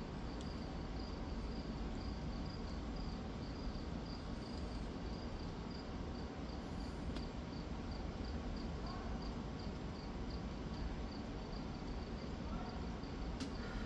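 Night insects chirping in an even, repeating pulse, over a low steady rumble. There is a single click near the end.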